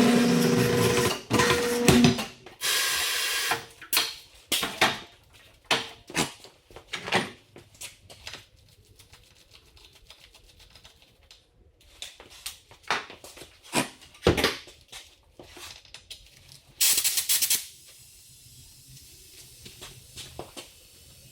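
Tire changing machine at work mounting a large tire on a wheel: hissing bursts of compressed air, one about three seconds in and a louder one near seventeen seconds, with a run of clanks and knocks from the machine and tools in between.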